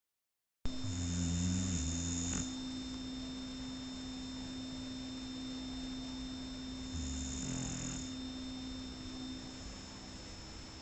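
Shar Pei dog snoring, two low, rasping snores about six seconds apart, the first starting about half a second in. A steady electrical-sounding hum runs underneath.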